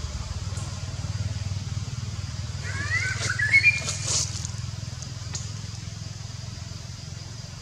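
A steady low motor hum, like distant engine traffic. About three seconds in, a short burst of high, rising chirping calls comes with a few sharp clicks, then fades.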